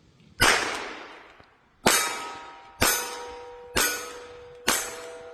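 Five shots from a Meligun .22 revolver-knife, fired at about one a second. Each is followed by a metallic ringing that lingers.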